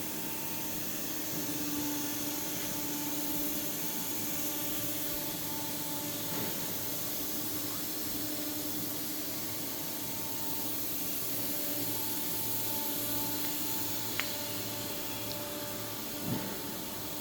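Steady hiss with a faint, even hum underneath, broken by a single sharp click about fourteen seconds in and a short thump near the end.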